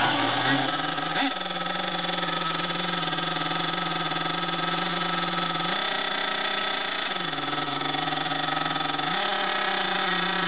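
Small glow-fuel (nitro) engine of a radio-controlled off-road car running at a steady idle. Its pitch steps up briefly about six seconds in, then rises again a couple of seconds later and holds there.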